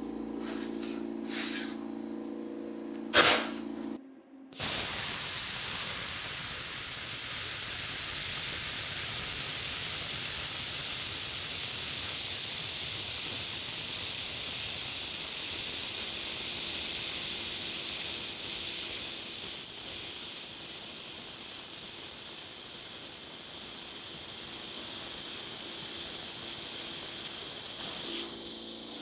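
Plasma cutter cutting steel plate: a steady, loud hiss of air and arc that starts after a short break about four and a half seconds in and runs until near the end. Before it there is a low hum with a few clicks.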